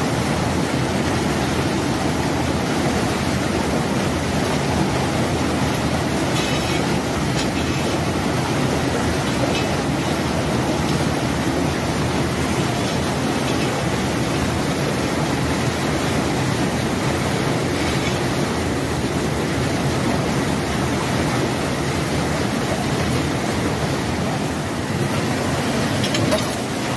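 Fast floodwater rushing over an overflow weir, a steady churning roar close to the microphone.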